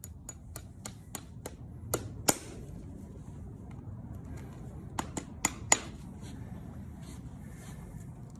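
Farrier's hammer tapping horseshoe nails into a hoof: a quick run of light taps ending in two harder strikes, then, a few seconds later, another run of four sharp strikes.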